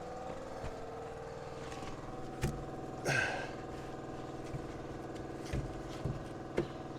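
An engine idling steadily, with a few clunks about two and a half, five and a half and six and a half seconds in, and a short hiss just after three seconds.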